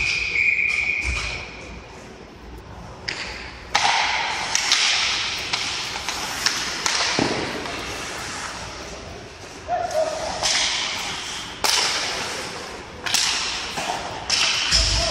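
Ice hockey play in an echoing rink: skate blades scraping the ice in repeated hissing strokes, with sharp knocks of sticks, puck and boards. A short high whistle sounds right at the start.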